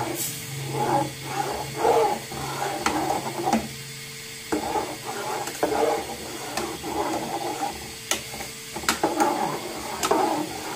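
Steel spoon scraping round the bottom and sides of a metal saucepan in repeated strokes as milk is stirred continuously at the boil, with a few sharp clinks of the spoon against the pot.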